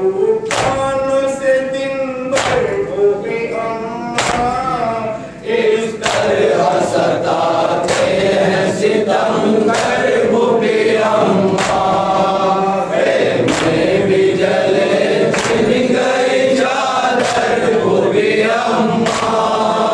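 A group of men chanting a noha, a Muharram lament, in unison, its rhythm kept by sharp slaps of hands on chests (matam) about once a second.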